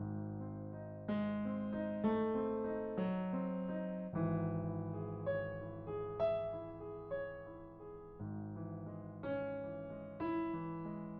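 Slow background piano music: single notes struck about once a second and left to fade, over held low bass notes.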